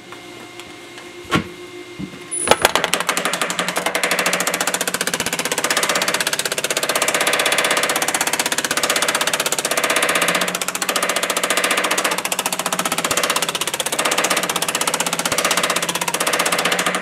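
Power hammer with shrinking dies striking a sheet-metal panel in a fast, continuous run of blows. It starts about two and a half seconds in after a couple of single knocks and stops abruptly at the end. The dies are shrinking the panel's edge so that it rolls over.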